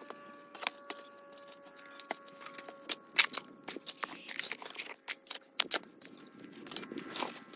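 A metal shovel digging into garden soil, with many sharp gritty scrapes and clicks as the blade is driven in and levered out.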